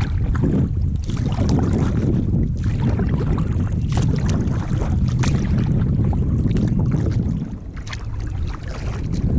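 Wind buffeting the microphone in a low, steady rumble while a kayak is paddled, with irregular splashes and drips from the paddle; the rumble eases off near the end.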